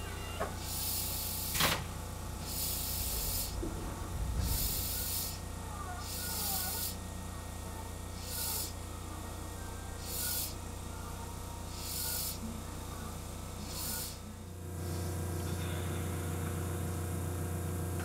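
Underfloor equipment of a Tobu 30000 series train at standstill: a steady low hum with short hisses repeating about every two seconds, each shorter than the last, then stopping. A sharp click about two seconds in.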